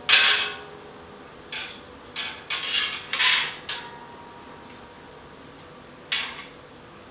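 Metal spatula clanging and scraping against a wok as the stir-fry is moved out of the pan: one sharp ringing clang at the start, a quick run of scrapes and knocks a couple of seconds in, and one more scrape near the end.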